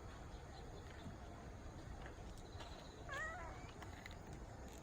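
A pet cat gives one short meow about three seconds in.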